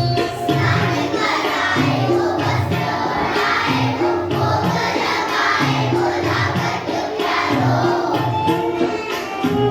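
Indian devotional song for Krishna: voices singing together over instrumental backing with a steady, repeating beat.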